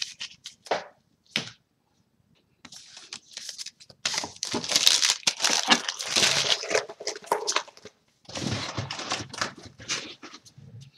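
Trading cards and foil booster-pack wrappers being handled: a few sharp clicks, then a long spell of crinkling and rustling with a short break near the end.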